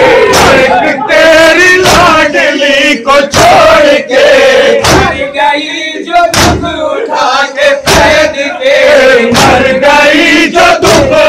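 Men chanting a noha, a Shia mourning lament, together over a loud PA, in Urdu. Sharp, roughly regular slaps of matam (hands beating chests) land in time with it, about one a second, and the singing briefly thins out around the middle.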